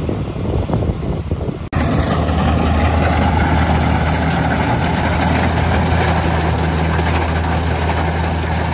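Wind-buffeted rumble for the first second and a half, then an abrupt cut to a Kubota rice combine harvester's engine running steadily with a constant low hum.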